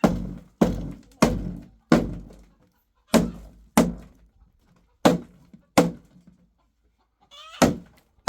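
A run of heavy thuds, about nine blows, often in pairs a little over half a second apart, each dying away quickly.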